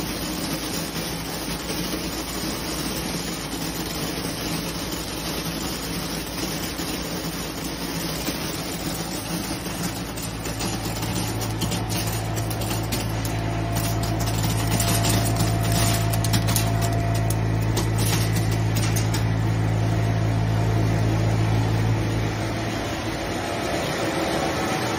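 Optical colour sorter for roasted coffee beans running with a steady machine noise. A strong low hum comes in about ten seconds in and stops a few seconds before the end. In the middle there is a spell of quick light ticking and rattling as sorted beans drop into a plastic crate.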